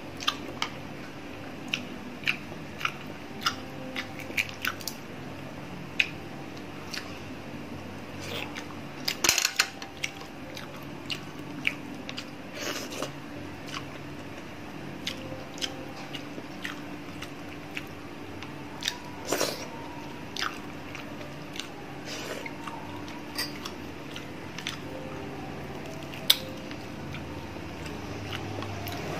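Close-up eating sounds of a person chewing green mussels picked from the shell by hand. Chewing and wet mouth sounds come with many short, sharp clicks scattered throughout, a quick cluster of them about nine seconds in, over a steady low hum.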